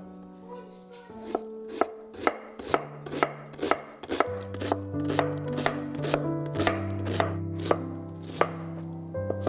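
Chef's knife chopping an onion on a wooden cutting board: sharp knife strikes against the board about two a second, starting about a second in, as the onion is sliced and then diced. Soft background music plays underneath.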